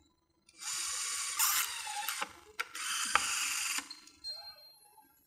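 HELICOIL E-PSG 256 electric installation screwdriver running twice with a high, whirring gear noise: about a second and a half driving a HELICOIL thread insert into a tapped hole in aluminium, a short pause, then about a second more as the second step of the cycle finishes. A sharp click sounds partway through the second run.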